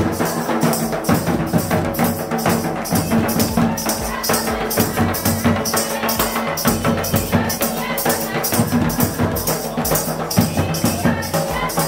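Folk drumming on a slung barrel drum beaten in a steady rhythm, with a jingling rattle on the beat about twice a second.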